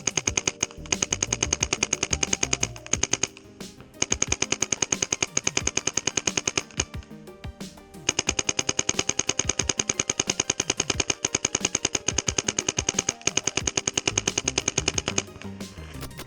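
Paintball marker firing rapid strings of shots through a 3D-printed plastic barrel, about ten shots a second. There are three strings with short pauses between them; the last is the longest and stops shortly before the end.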